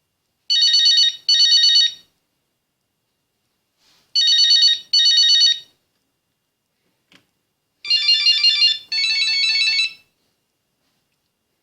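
Nokia 8110 mobile phone playing its ringtones: short bursts of fast, high-pitched beeping notes coming in pairs, three times with pauses between. The last pair is lower and fuller, and a small click comes just before it.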